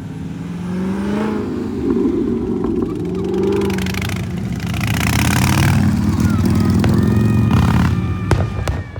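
A motor vehicle's engine running close by, its pitch gliding up and down early on and then settling into a steady low drone that grows louder, with a few sharp clicks near the end.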